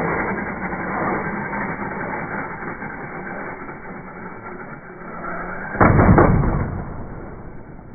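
Slowed-down, deep sound of a radio-controlled truck jumping: a fading whir from the truck in flight, then one heavy thud as it lands on the asphalt about six seconds in.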